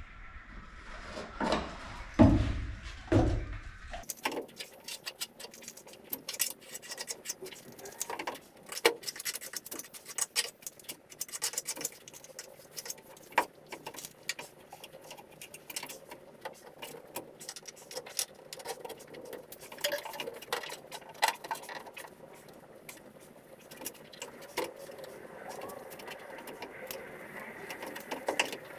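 Hand tools and small items clicking, tapping and clattering as they are handled on a plywood floor, with a few heavier knocks in the first four seconds.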